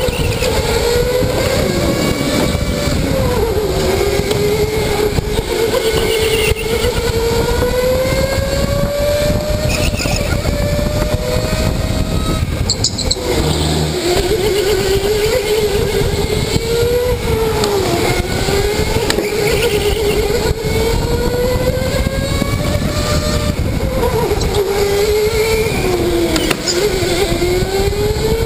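Electric go-kart's motor whining from the driver's seat, its pitch rising on the straights and dropping into the corners, over a steady rumble of tyres and chassis. About halfway through the whine breaks off briefly with a knock.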